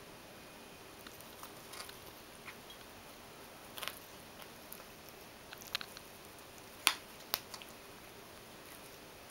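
Ragdoll cat gnawing at the edge of a carpet rug: scattered soft crunches and clicks of teeth on the pile, with two sharper ones about half a second apart near seven seconds in.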